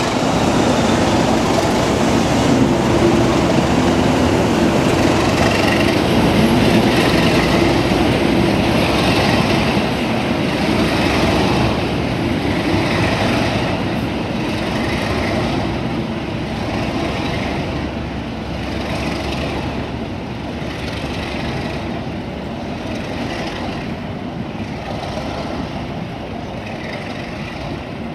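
Class 37 diesel locomotives with their English Electric V12 engines running as a loco-hauled passenger train pulls past and away, with wheels clattering over rail joints and points at a regular beat. The sound grows fainter over the second half as the train recedes.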